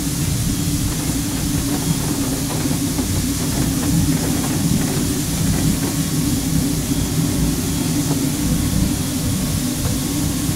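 Steam locomotive moving slowly tender-first, a steady low rumble with faint scattered light knocks.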